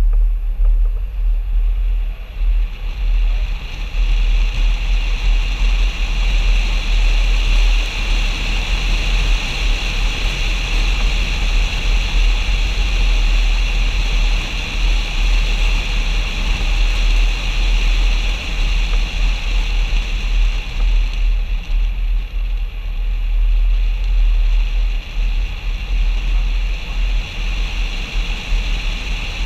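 Steady wind and road noise of a Mercedes-Benz ML350 BlueTec SUV driving, picked up by a camera mounted outside on the bonnet. A heavy low rumble of wind buffeting the microphone sits under a constant hiss.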